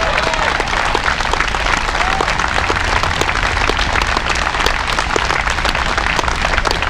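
Crowd applauding, a dense steady patter of many hands clapping, over a low steady rumble.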